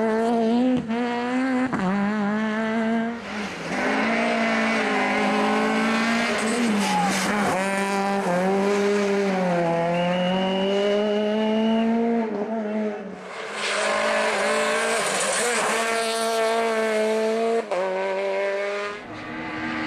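Peugeot 208 R2 rally car's naturally aspirated four-cylinder engine revving hard, its pitch climbing and dropping through gear changes and lifts. A brief high tyre squeal comes about halfway through.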